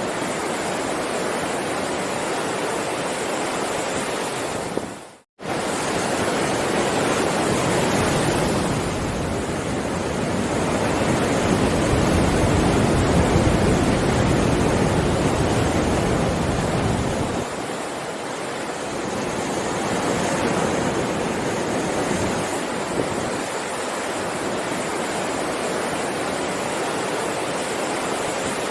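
Heavy ocean surf: a continuous rush of breaking waves that swells louder and deeper in the middle, its low rumble falling away sharply about two-thirds of the way through. The sound cuts briefly to silence just after five seconds.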